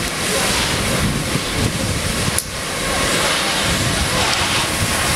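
Loud steady rushing hiss from the car burning after its gas cylinder exploded, with a brief dropout about two and a half seconds in.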